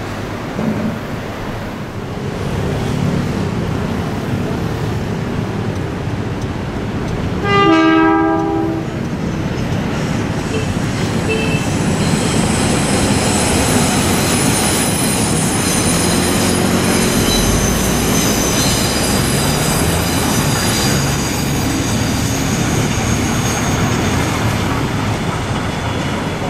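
Steam train running with a continuous rumble. Its whistle blows once for about a second, about a third of the way in, and is the loudest sound. From about halfway the rolling rumble carries thin high squealing tones from the wheels.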